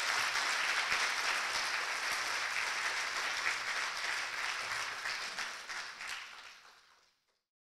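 Audience applauding at the close of a speech, a dense steady patter of many hands clapping that fades out near the end.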